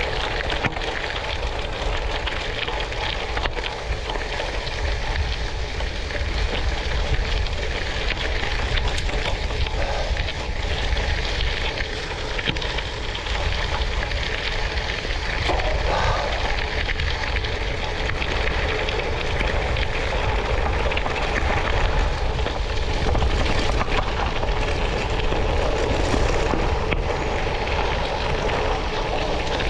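Steady rumble and rush of travel over a gravel road, tyre noise mixed with wind on the microphone.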